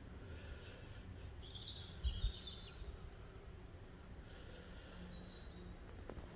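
Quiet outdoor background with a bird chirping briefly about two seconds in and again faintly near five seconds, over the low rumble of a handheld phone being moved around, with one soft knock about two seconds in.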